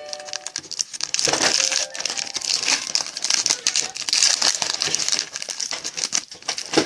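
Plastic and foil wrapping crinkling and tearing as a sealed 2016 Panini Donruss Optic Football card box and its packs are unwrapped by hand, a dense, continuous crackle.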